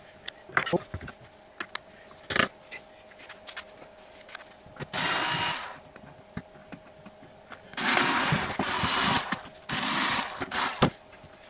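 Cordless drill-driver running in three short bursts, about five, eight and ten seconds in, backing out the screws that hold a drain pump's housing together. Before the first burst, light clicks and knocks of tools being handled on the bench.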